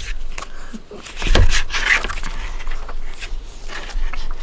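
Cardboard Elite Trainer Box being handled and opened: scattered light clicks and knocks of cardboard, with a louder scrape and thump about a second and a half in.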